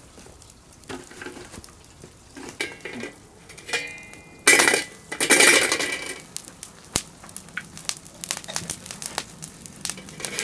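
Metal cookware being handled: clinks and short ringing knocks, with a louder scraping, rustling stretch about four and a half seconds in, lasting a second or two, then more light clicks.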